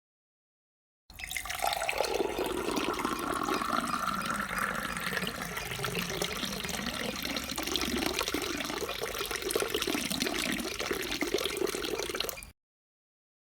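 Water pouring into a glass, a steady splashing pour lasting about eleven seconds, starting about a second in and cutting off suddenly near the end.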